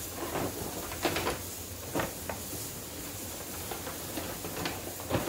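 Scattered light knocks and rustles of gifts and their packaging being handled, over a steady hiss.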